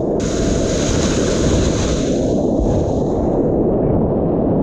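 White water rushing steadily on a standing wave while a kayak surfs it.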